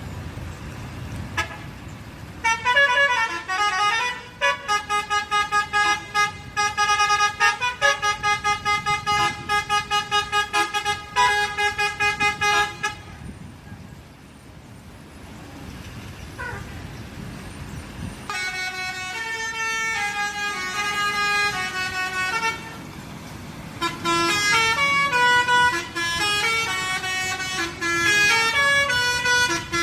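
Indonesian 'telolet' multi-tone bus horn on a Family Raya Ceria bus, played as a melody in three bursts. The first, starting a few seconds in, is a long run of rapid staccato toots. After a pause, two more bursts play stepping chords of several tones at once. Between them a quieter rumble of road traffic is heard.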